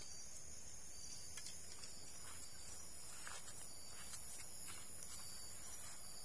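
Steady, high-pitched chorus of night insects, with a few faint clicks.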